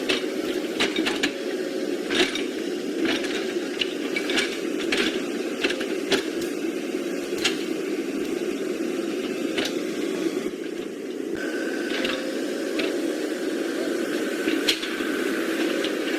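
Small electric motors and plastic gearboxes of radio-controlled toy construction vehicles whirring steadily, with irregular clicks and rattles over them. A faint higher whine joins about eleven seconds in.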